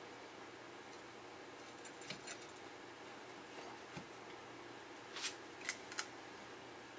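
Faint handling of a casting mold as its halves are pulled apart and a cast aluminium bronze dagger is lifted out: a few light scrapes and taps, then a cluster of sharper scratchy clicks of metal against the mold about five to six seconds in.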